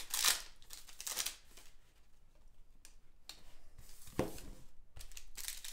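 Foil trading-card pack wrapper and cards rustling as they are handled, in a few short crinkling bursts: two in the first second or so and another about four seconds in.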